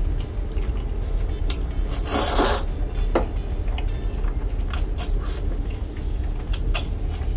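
A person slurping chewy spicy jjolmyeon noodles and chewing. There is one long slurp about two seconds in, then shorter slurps and mouth smacks.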